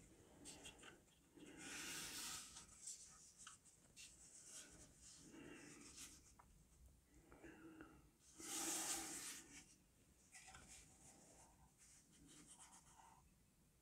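Faint rubbing and scraping as hands grip and turn a sanded, hardwood-planked wooden model ship hull, with two louder rubs about two seconds in and around nine seconds in.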